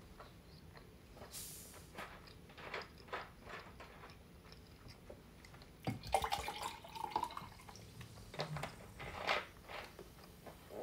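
Soda poured from a large plastic Sunkist bottle into a drinking glass about six seconds in: a splashing pour whose pitch rises over about a second as the glass fills. Soft chewing and mouth clicks come before and after it.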